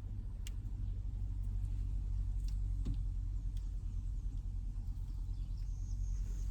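A few light clicks of wires and crimp connectors being handled over a steady low rumble.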